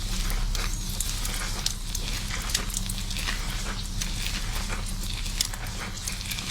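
Fingers scrubbing and scratching through shampoo-lathered hair and scalp: a dense, continuous run of small crackles and rustles, over a low steady hum.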